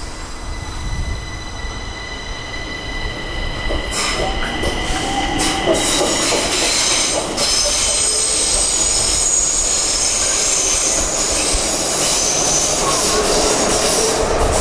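Stockholm metro train pulling out of the station and gathering speed. A steady high whine comes first, then louder running noise of wheels on rail with high-pitched wheel squeal from about six seconds in.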